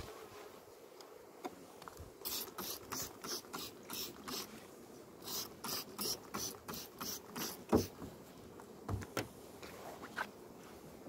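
Scraping and knocking on a wooden beehive: two runs of quick scraping strokes, about three a second, as a hive tool works the wooden frames. Then a sharp wooden knock near eight seconds in as a frame of wax foundation is set into the hive, and a few softer knocks after.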